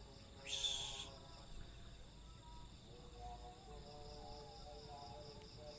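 Night insects, crickets, trilling steadily in a fast even pulse, with a brief hiss about half a second in.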